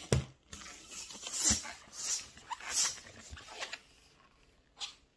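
Freshly inflated green 260 latex modelling balloon squeaking and rubbing under the hands as it is handled and stretched, a string of short noises with a sharp click at the start.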